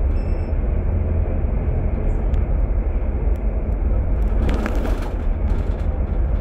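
Steady low rumble of a coach bus on the move, heard from inside the passenger cabin: engine and road noise with a few faint clicks.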